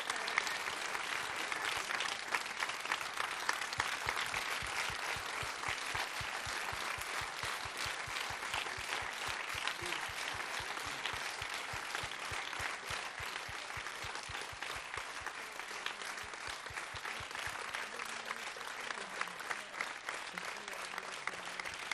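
Theatre audience applauding: sustained clapping from many hands, easing off a little toward the end.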